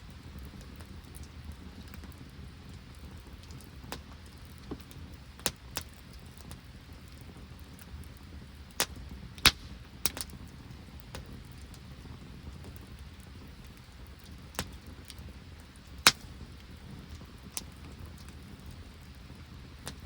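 Open wood campfire crackling: scattered sharp pops at irregular intervals, a couple of them much louder than the rest, over a steady low rushing background.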